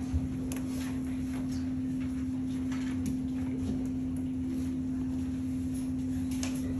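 Meeting-room background: a steady low hum over a low rumble, with scattered faint clicks and taps.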